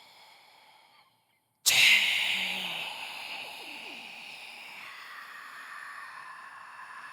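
Eerie breathy whisper sound effect: after a brief silence, a sudden sharp hissing whisper starts about one and a half seconds in and trails off into a long airy breath.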